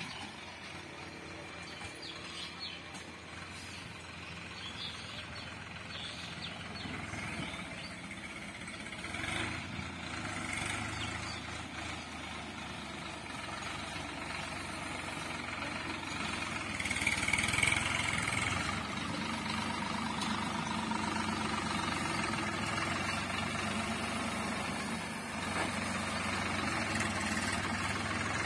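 Farm tractor's diesel engine running as it pulls a loaded trailer, growing steadily louder as it approaches.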